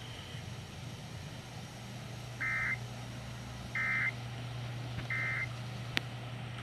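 Emergency Alert System end-of-message signal: three short identical bursts of two-tone digital SAME data, about 1.3 s apart, over a steady low hum, with a sharp click about a second after the last burst.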